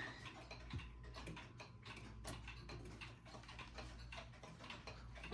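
Ridgeway Breton grandfather clock's movement ticking steadily and faintly.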